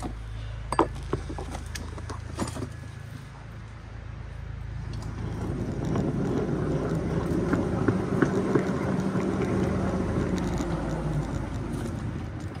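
Small ride-on 7 1/4-inch gauge train rolling along the track: a steady low hum under wheel and car rattle, with a few sharp clicks early on. The rumble grows louder about halfway through, then eases slightly near the end.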